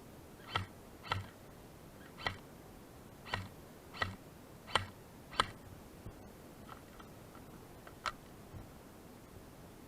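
Airsoft guns firing single shots: a string of short, sharp clicking pops under a second apart, the last few fainter.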